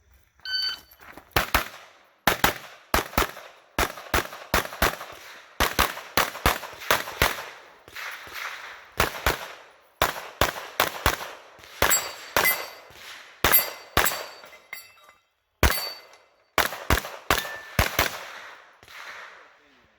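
An electronic shot-timer beep, then a USPSA stage run: many pistol shots fired in quick strings, broken by short pauses between strings.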